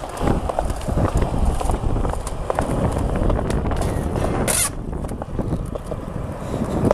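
Skateboard wheels rolling over concrete, a continuous rumble with scattered clicks. About four and a half seconds in comes a brief high scrape as the board meets the metal rail.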